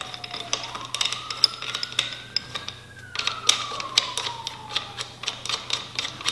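Ratchet wrench clicking as the handlebar clamp bolts on a dirt bike's triple clamp are run in: a few scattered clicks, then a quick, even run of clicks from about halfway through.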